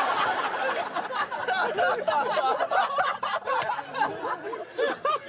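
Several people laughing and chattering at once, overlapping voices with giggles and chuckles.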